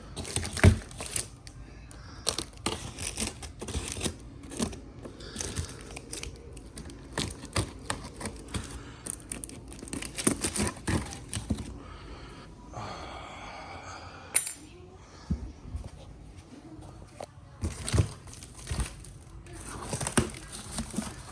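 Cardboard shipping box and its packing being torn open and rummaged through by hand: repeated tearing and crinkling with scattered knocks, and one longer tearing pass a little past halfway.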